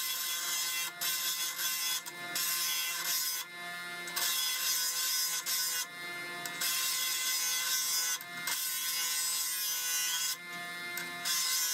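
Bench grinder with a 40-grit silicon carbide wheel grinding a high-speed steel lathe tool blank. A harsh grinding hiss rides over the grinder's steady whine, and it breaks off briefly several times as the tool comes off the wheel.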